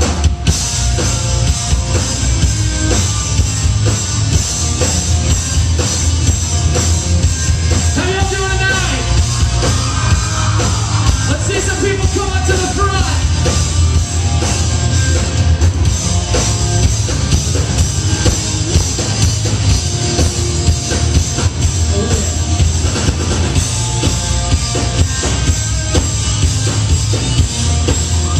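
Live rock band playing loud: electric guitars, bass and a drum kit, with a singer's voice coming through from about eight seconds in.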